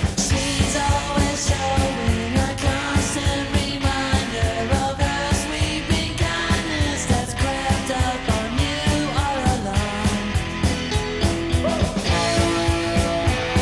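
Rock band playing live: a drum kit keeps a steady, even beat under electric guitars.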